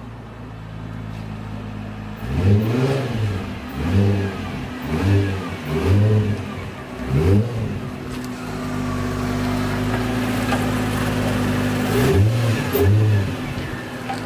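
Nissan 350Z's 3.5-litre V6 idling, then blipped with a run of about five quick throttle revs a second or so apart, then running steadily, with two more revs near the end.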